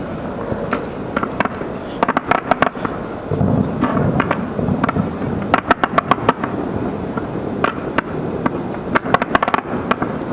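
Aerial fireworks going off in quick clusters of sharp bangs and crackles, over a steady background noise. A deeper rumble comes about three and a half seconds in.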